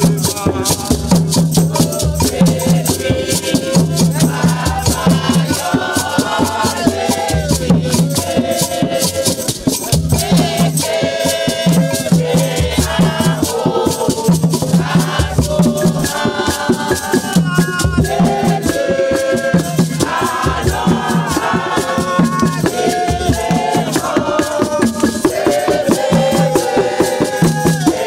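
A group of people singing together to a quick, steady rattle or shaker beat, over a repeating bass line.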